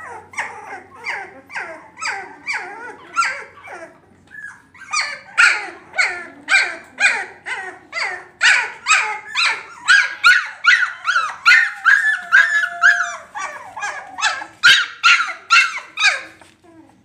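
A litter of caged Labrador puppies yelping and whining over one another in quick, high-pitched calls, about two or three a second, with a short lull about four seconds in.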